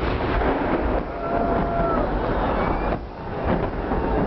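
Large fireworks salute bursting overhead: a continuous rumble of overlapping booms, with a brief held tone a little after a second in.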